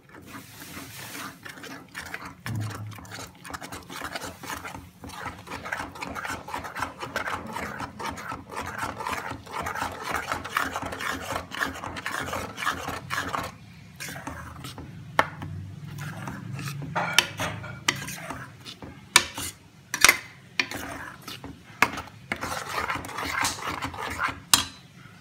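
A spoon stirring and scraping thick spinach puree and masala around a pan: a continuous rasping scrape, with occasional sharp knocks of the spoon against the pan in the second half.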